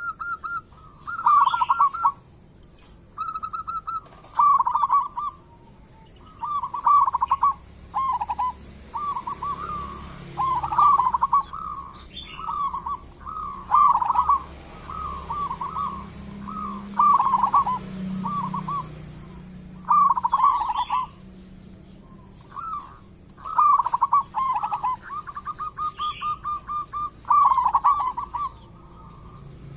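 Zebra dove (perkutut) cooing in repeated phrases of rapid, stuttering notes, one phrase every second or two. A couple of longer, even trills come near the start and near the end.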